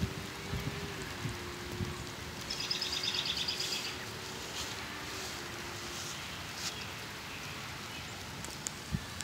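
Steady rain falling on foliage, with a bird's rapid high trill about two and a half seconds in that lasts about a second and a half. A low steady hum runs through the first six seconds, and a few light knocks come near the start and end.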